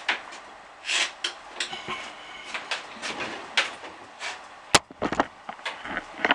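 Irregular clicks, knocks and short scrapes of metal parts and tools being handled on a bench drill press, with a sharp click about three quarters of the way through and another at the very end.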